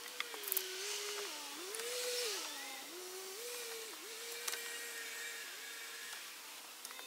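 Howling wind, a single hollow tone that slides up and down in slow swells. A few light knocks come through, near the start and again about four and a half seconds in.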